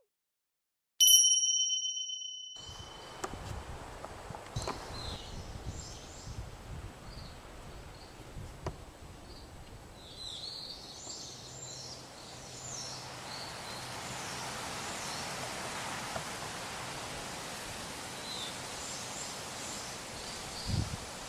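A single bright ding about a second in, ringing out over a second or so. It is followed by steady outdoor ambience: a low background hiss with scattered short, high chirps and a few soft knocks.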